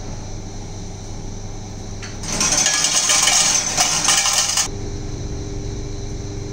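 Banknote-to-coin changer machine dispensing coins into its metal tray: a clatter of coins lasting about two seconds, starting about two seconds in, over a steady low hum.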